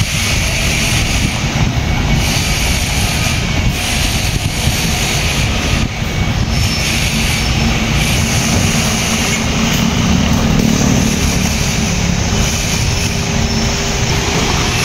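Isuzu Forward truck's 6HQ1 six-cylinder diesel engine idling steadily.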